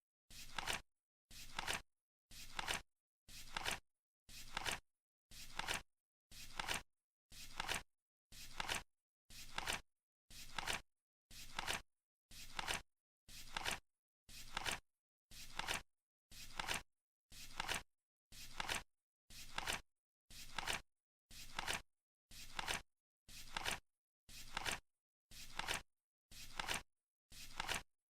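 Flip-clock timer sound effect: once every second a short flapping rustle that ends in a sharper click as a card flips over, with silence between flips.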